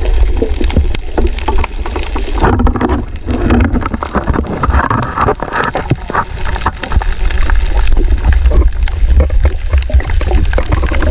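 Underwater sound picked up by a camera moving through the water during a night spearfishing dive: a heavy low rumble of water against the camera with constant crackling clicks and gurgling. Louder muffled sounds come up twice, a few seconds in.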